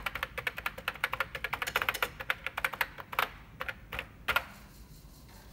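Keys being typed quickly on a Commodore 64 keyboard, a rapid run of clicks that ends with one louder keystroke a little over four seconds in.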